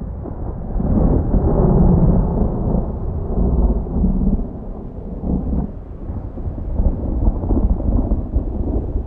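Thunder: a long, rolling low rumble that swells and fades unevenly, loudest a second or two in and slowly weakening after.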